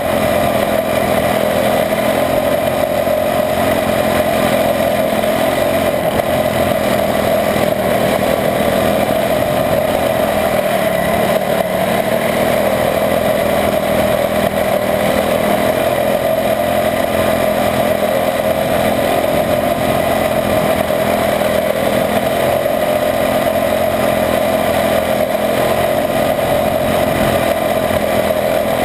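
Onboard sound of a Sr Honda quarter midget's small single-cylinder Honda engine running hard around the oval, a steady buzzing engine note with a brief dip near the middle.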